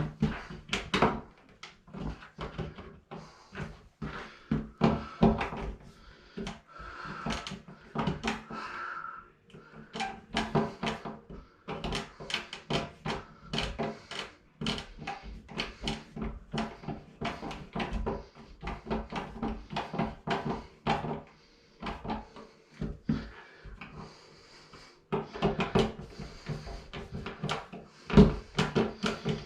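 Irregular small clicks, knocks and rattles of hands working with tools and outlet parts at an electrical box, with a louder knock at the start and another near the end.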